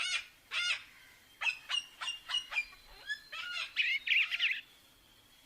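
A series of bird calls: two nasal calls near the start, a quick run of short chirps, then a warbling trill about four seconds in.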